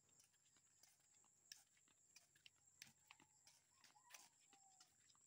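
Faint footsteps on a concrete road, flip-flops slapping in an irregular tick every half second to a second, over near silence.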